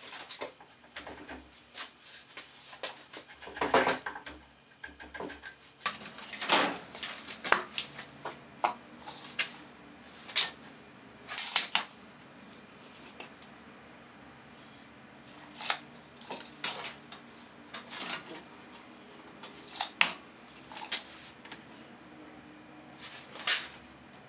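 Irregular sharp clicks and taps of small things handled on a steel-topped workbench: a pen, a notepad and a tape measure being picked up, used and set down. About a dozen of them, loudest about four seconds in.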